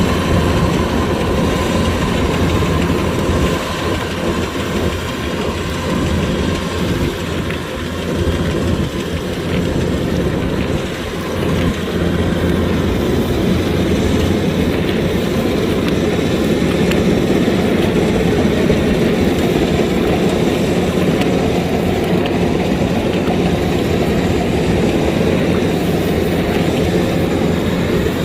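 Kubota DC-105X combine harvester running steadily, its diesel engine and cutting and threshing gear making a continuous mechanical rumble and clatter, easing slightly for a few seconds before settling back.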